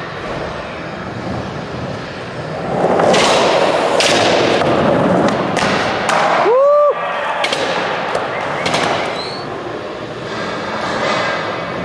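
Skateboard wheels rolling over concrete and wooden ramps in a large indoor skatepark, with several sharp clacks and thuds of the board popping and landing tricks. A short squeal that rises and then holds cuts in about six and a half seconds in.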